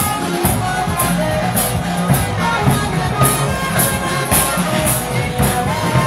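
Loud music with a steady beat, high percussion strokes about twice a second over a moving bass line.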